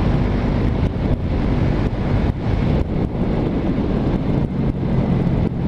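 Yamaha parallel-twin motorcycle engine running steadily while riding, with heavy wind rushing over the helmet microphone.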